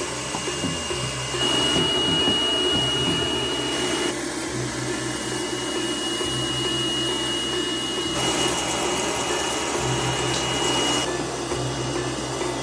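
A motor-driven machine or power tool running steadily with a thin high whine. Its sound changes abruptly a few times.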